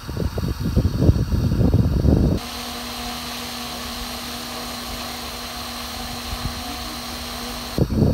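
Radio-controlled helicopter running steadily, a level hum under a high whine. For the first couple of seconds and again near the end, gusty wind buffeting on the microphone covers it, and each switch is abrupt.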